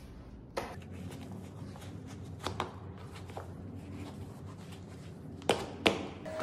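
Footsteps of sneakers on a laminate floor: scattered soft steps, with two sharper knocks near the end, over a low steady hum.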